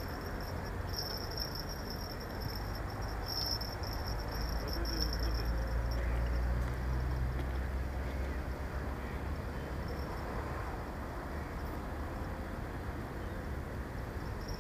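Outdoor background: a low rumble that swells for a few seconds midway, under a thin, steady high-pitched chirring that comes and goes and fades out about halfway through.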